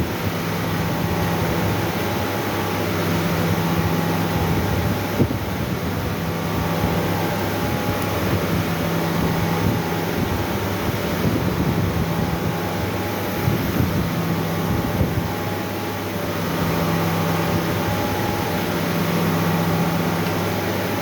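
CNC machine running with a steady mechanical hum and whir. A low tone in the hum swells and fades every few seconds.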